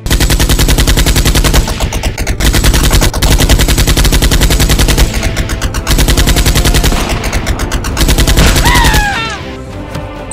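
Sound effect of automatic gunfire: rapid, loud bursts of shots with brief breaks, running for about nine seconds. Near the end come two short falling whines, and then the firing stops.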